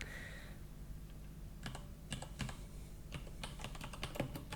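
Typing on a computer keyboard: a run of irregular keystrokes starting about a second and a half in.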